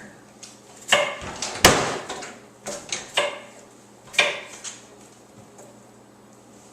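Silverware and dishware knocking and clattering as a dishwasher is unloaded: about five sharp knocks in the first four and a half seconds, the loudest a heavier thump about a second and a half in, then quieter.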